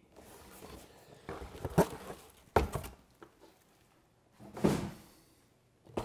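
A cardboard motherboard box being handled and set down: rustling and scraping with a few dull knocks, the strongest about two and a half seconds in.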